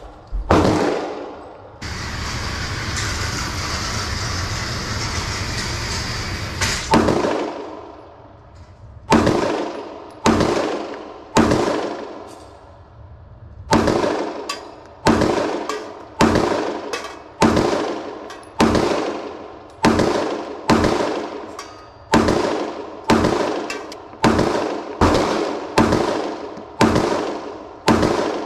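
Gunshots at a shooting range, over twenty shots fired one after another at about one a second or a little faster, each followed by a ringing tail. Before the string of shots begins there are a few seconds of steady noise.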